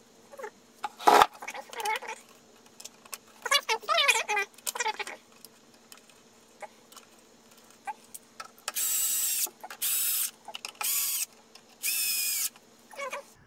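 Handheld electric screwdriver running in four short bursts, each under a second, as it drives the scooter's deck screws home. A sharp click comes about a second in.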